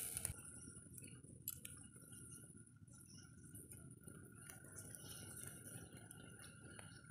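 Quiet slicing of small wild tomatoes with a machete over a pot, with a few faint clicks as pieces drop in. A faint steady high tone runs underneath.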